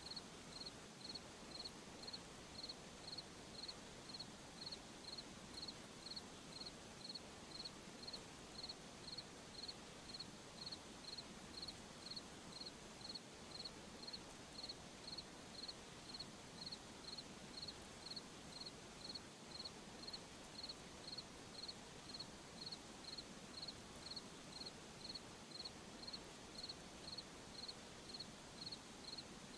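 A cricket chirping steadily at an even rhythm, about three high chirps every two seconds, over a soft night-time hiss.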